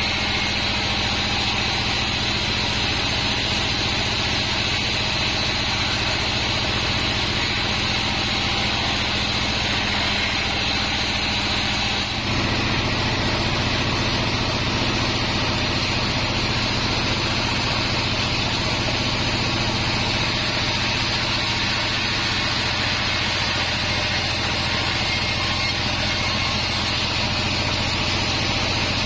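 Band sawmill running steadily, with a machine hum and a band-saw hiss. The pitch of the hum changes abruptly about twelve seconds in.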